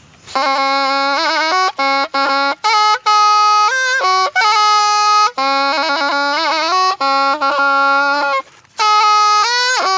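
Thai pi, a reed oboe, playing an ornamented melody of bending, wavering notes, starting just after the beginning, broken by short gaps between phrases and a brief pause near the end.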